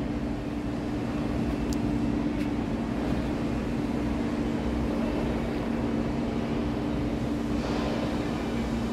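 Steady machine hum: a low rumble with two constant humming tones that do not change.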